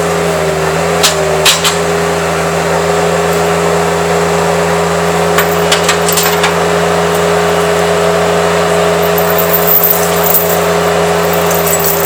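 An engine of the heavy equipment idling steadily, with a few sharp clinks and knocks about a second in and again around the middle.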